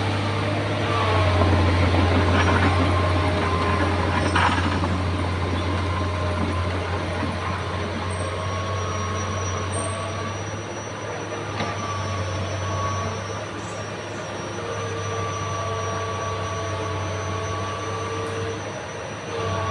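Heavy tracked machinery working: a diesel engine with a steady low rumble, with drawn-out high squealing tones that come and go, and a sharp clank about four seconds in.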